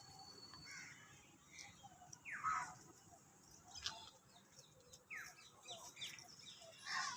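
Birds chirping faintly in short, scattered calls, several of them sliding down in pitch.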